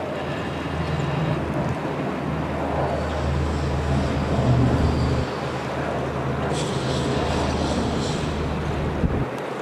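Yamaha outboard engine on a Robalo 246 Cayman bay boat running at speed past the listener: a steady low drone over a wash of water and wind noise. The drone drops away just before the end.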